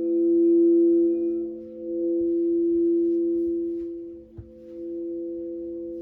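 Crystal singing bowls ringing: several low sustained tones held together, swelling and fading in slow waves. A small click about four seconds in.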